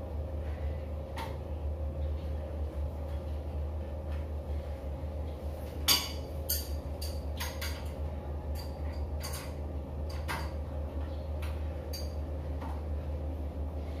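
A metal wrench clicking and clinking on the pipe fitting beneath a shower water heater, with one click about a second in and then more than a dozen sharp clicks from about six seconds on. A steady low hum runs under it throughout.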